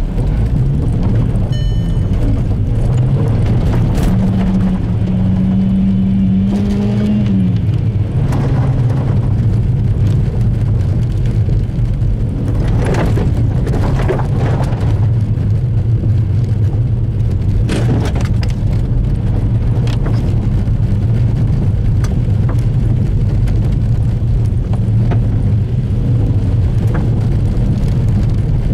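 Volkswagen engine running as the car drives a rough dirt track, heard from inside the cabin. The engine note holds higher for a few seconds and drops about seven seconds in, and a few sharp knocks come through around the middle.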